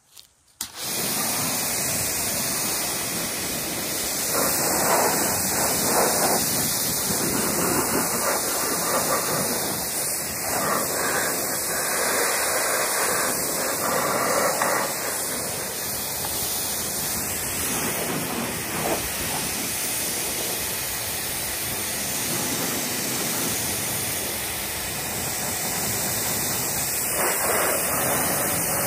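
Compact Kärcher electric pressure washer spraying a high-pressure water jet: a steady hiss that starts about a second in and swells and eases a little as the jet is moved around.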